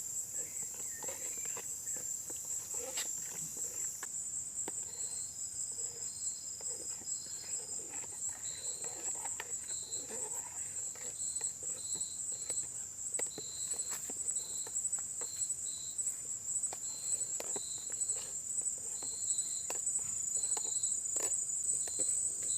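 Crickets trilling steadily, joined by short chirps repeating about twice a second from about five seconds in. Scattered light clicks and scrapes of a spoon stirring a pot of thick soup that is sticking to the bottom.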